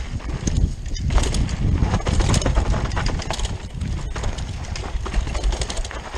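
Rockrider 540s mountain bike descending a dirt forest trail at speed: tyres rumbling over the ground while the chain and frame rattle and clatter over bumps in quick knocks. Wind buffets the mounted camera's microphone in a constant low rumble.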